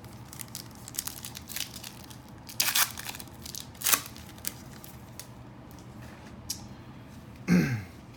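Trading card pack wrapper being torn open and crinkled, with cards rustling as they are handled, in a few sharp bursts of tearing about three and four seconds in. Near the end comes a short, louder squeak that falls in pitch.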